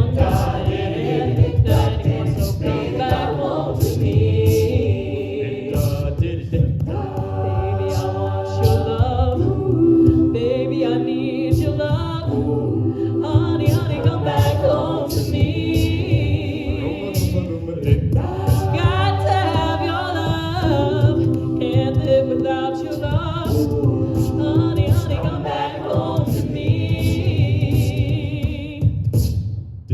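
A cappella vocal group singing in close harmony, with vocal percussion keeping a steady beat of sharp clicks.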